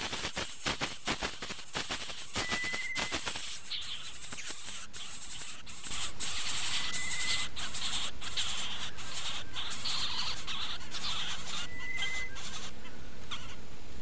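Greater coucal nestlings begging in the nest: a rapid, dry rattle of clicks, turning about six seconds in to a louder, steadier rasping hiss. A short, thin high whistle sounds three times.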